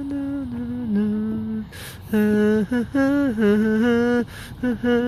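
A person humming a melody in long, held notes with short breaks between phrases.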